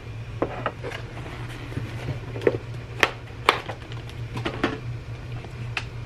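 Clear plastic clamshell lid of a takeout sandwich container being pried off and handled: a string of sharp plastic clicks and crackles, loudest about three seconds in, over a steady low hum.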